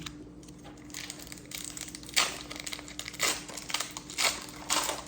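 Foil Pokémon booster pack wrapper crinkling as it is handled and opened, with several sharper crackles in the second half.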